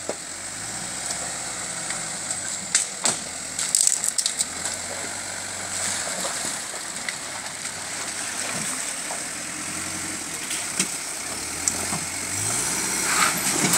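Mitsubishi L200 pickup's engine running at low revs as it crawls slowly through a rocky stream bed, with a few knocks of tyres and stones about three to four seconds in, over the hiss of running water.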